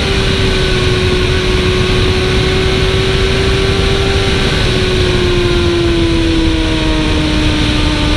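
Sport motorcycle's engine running hard at track speed under heavy wind rush over the bike-mounted camera. The engine note holds high and steady, then slowly drops in pitch over the last few seconds.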